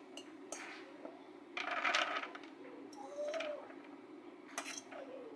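Metal pot being tipped and knocked while cooked rice is scraped out of it into plastic meal-prep containers: several light metallic clinks and knocks, with a longer scraping noise about a second and a half in.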